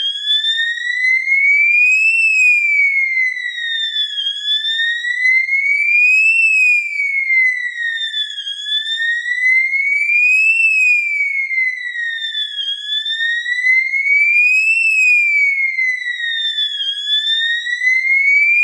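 Fire-alarm strobe sounder sounding a slow wailing siren tone that sweeps up and down about every four seconds, powered at 24 V through an explosion-proof safety barrier and working normally.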